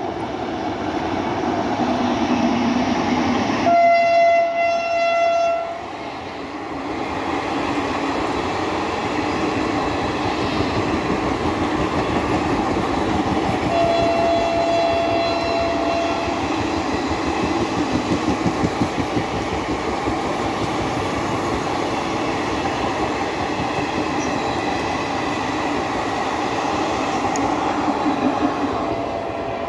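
Passenger train passing close by, hauled by an Indian Railways electric locomotive: the coaches rumble and clatter steadily over the track. The locomotive's horn sounds two long blasts, about four and fourteen seconds in, and starts a third near the end.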